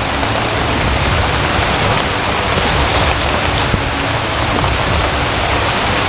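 Heavy rain falling steadily: a dense, even hiss over a low rumble.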